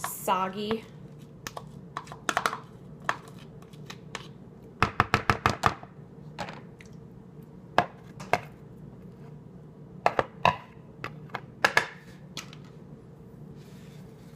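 A spoon clinking and knocking against a bowl while stirring mayonnaise and spices together, with a quick run of strokes about five seconds in and scattered single knocks otherwise, over a faint steady hum.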